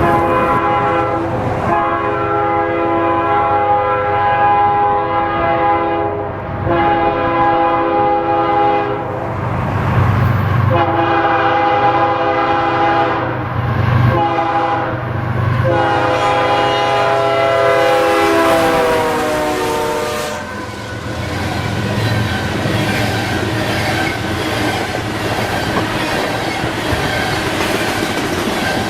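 Locomotive multi-chime air horn sounding a series of long blasts with brief gaps, the last blast dropping in pitch as the locomotive passes. Then the train rolls by, its wheels clattering over the rail joints.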